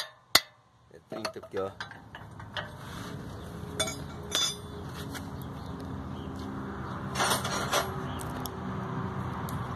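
Metal clinks of an open-end wrench on an oil plug of a Scania 114 truck's drivetrain housing: two sharp clinks at the start, then a few scattered clinks and scrapes over a steady low hum.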